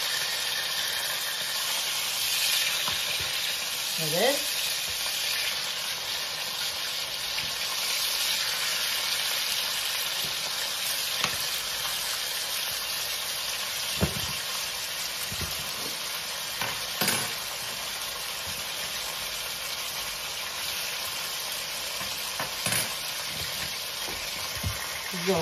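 Pork chops sizzling steadily as they fry in a ridged grill pan, with a few sharp clicks of a metal fork against the pan as the chops are turned.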